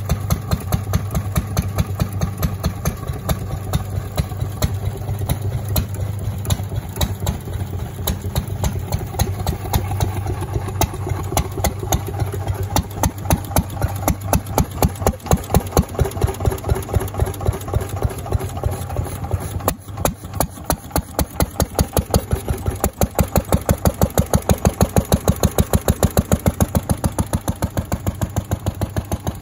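Lister D single-cylinder stationary engine running, with a steady rapid exhaust beat.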